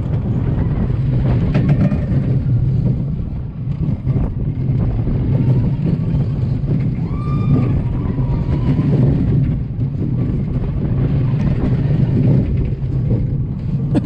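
Pax Company steel roller coaster train running along its track, the wheels rumbling steadily, with wind on the microphone. A short, wavering high tone is heard about seven seconds in.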